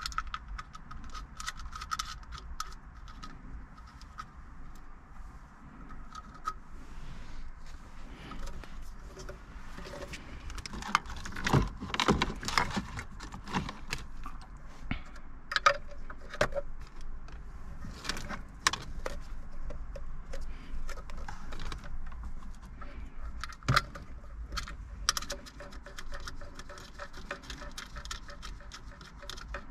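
Wiring-harness plugs and cables being handled and pushed into the back of an aftermarket car radio: small plastic clicks, rattling and wire rustle throughout, with a louder clatter about eleven to thirteen seconds in.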